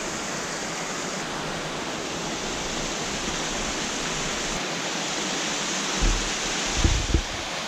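Steady rushing noise, even and unbroken, with a few short low thumps about six to seven seconds in.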